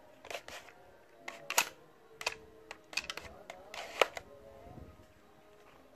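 Wooden slingshot pistol being handled and its sliding barrel worked: a run of sharp wooden clicks and knocks, the two loudest snaps about one and a half and four seconds in.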